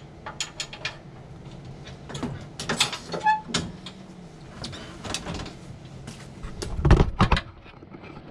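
Metal clicks and clanks from the deck-lift linkage of an Exmark Lazer Z zero-turn mower as the mowing deck is lowered, with a heavier thump and rattle about seven seconds in.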